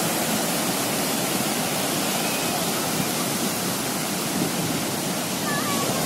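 Sea surf breaking and washing up a sandy beach: a steady, even rushing of waves.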